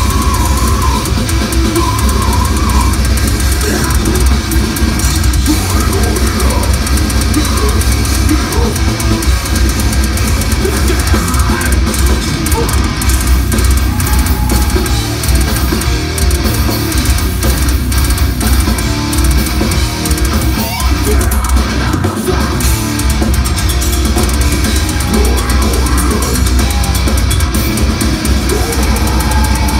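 Death metal band playing live at full volume, a dense wall of drum kit, cymbals and distorted electric guitars with no break.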